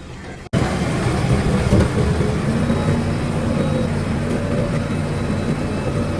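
Heavy diesel engine of earth-moving machinery running steadily. It starts abruptly about half a second in, at a cut from a quieter sound.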